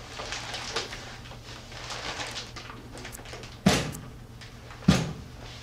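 Two loud knocks on a door, a little over a second apart.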